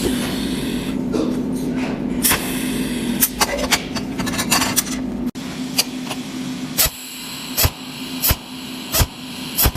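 Cold welding machine buzzing steadily, with sharp spark clicks. In the second half the clicks come regularly, about every three-quarters of a second.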